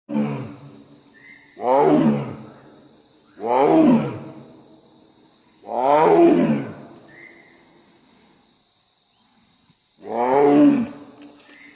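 A large wild animal roaring five times. Each roar is about a second long and falls in pitch. Four come in quick succession, then after a pause a fifth comes about ten seconds in. A faint steady high tone runs behind the roars.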